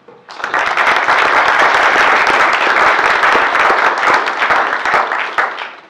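Audience applauding, many hands clapping together; it starts abruptly just after the beginning, holds steady, and dies away near the end.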